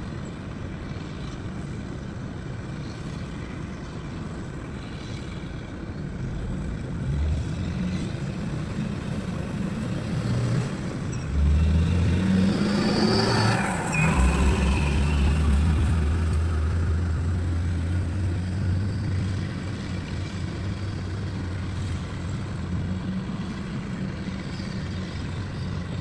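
A vehicle passing: a steady rumble grows louder, is loudest about halfway through, then slowly fades.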